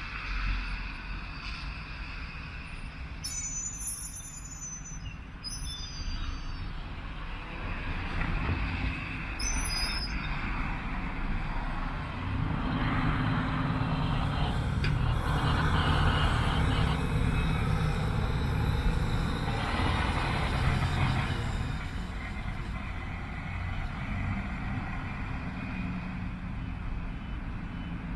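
Articulated city bus driving past. Its engine grows louder as it comes near, is loudest about midway, then fades as it pulls away.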